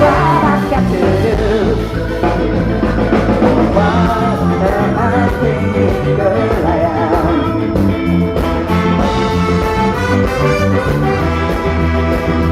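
Live ska band playing with a steady beat, a strong bass line and a wavering lead melody over it.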